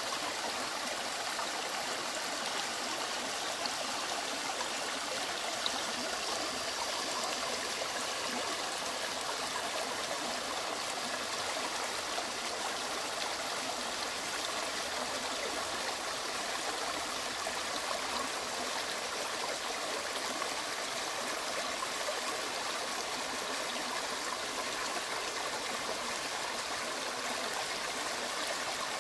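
Small rocky mountain stream running and splashing over little cascades between stones, a steady rush of water.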